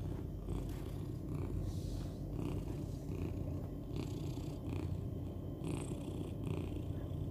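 A lilac tortie British Shorthair cat purring steadily, heard close up, the purr swelling and easing gently with her breathing. A contented purr from a cat in a very happy mood.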